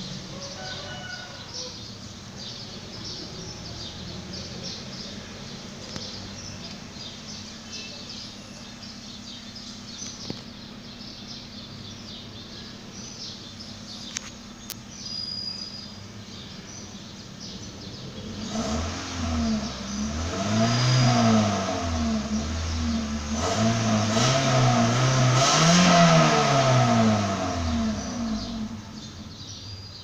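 Toyota Corolla GLI's 1.3-litre four-cylinder petrol engine idling steadily at about 1000 rpm, heard from inside the stationary car. In the second half it is revved up and down two or three times, then settles back to idle near the end.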